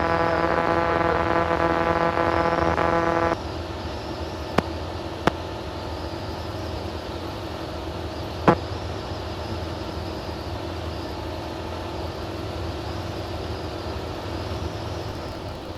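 Light aircraft engine and cabin noise as a steady drone during the climb, heard through the cockpit intercom. For about the first three seconds a loud steady tone with many overtones sounds over it and cuts off abruptly, and a few sharp clicks follow.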